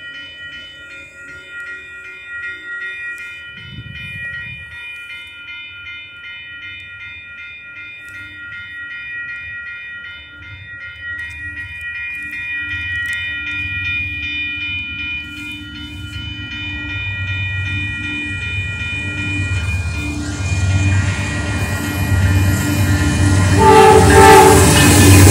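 Grade-crossing warning bell ringing in a steady repeating pattern while a Norfolk Southern freight train, led by an AC44C6M locomotive, approaches. The locomotive rumble grows steadily louder, and the horn sounds near the end as the lead engine reaches the crossing.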